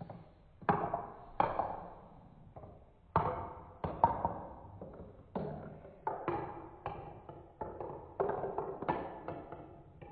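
Marbles running through a Trix Tracks plastic marble run: a string of hard clacks at uneven intervals, each trailing off in a short rattle as a marble drops and knocks along the plastic track.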